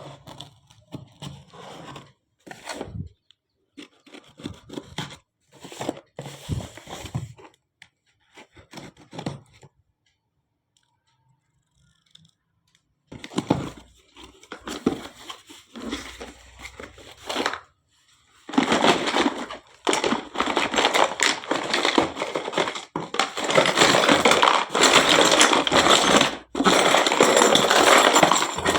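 Packaging of a miniature toy kitchen set being unwrapped and handled, with short bursts of crinkling, scraping and tearing. There is a pause of a few seconds about a third of the way in, then steady, louder crinkling over the last third.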